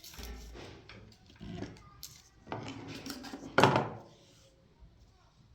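Hard objects being handled, with a series of irregular clattering knocks and scrapes; the loudest knock comes about three and a half seconds in.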